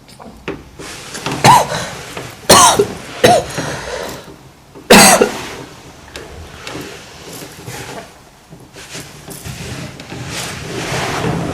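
A woman's throat sounds: four sudden loud bursts, cough-like, in the first five seconds, each trailing off in a short falling voiced tail. A slow noisy breath builds up near the end.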